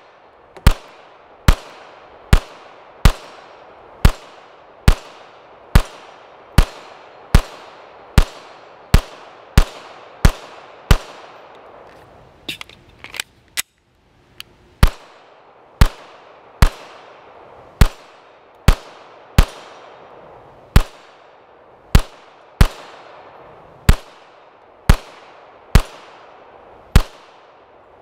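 Canik TP9 DA 9mm pistol fired in steady single shots, roughly one a second, about thirty in all, each with a short ringing tail. A pause of about three seconds near the middle holds a few lighter clicks before the shooting resumes.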